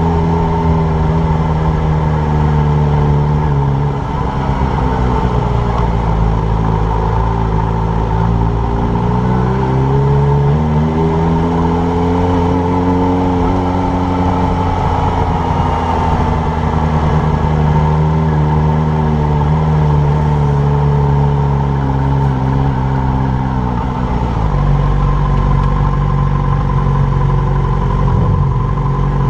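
Yamaha motorcycle engine running at low road speed, its pitch dipping, rising and falling with the throttle. Near the end it settles into a steady idle as the bike stands still.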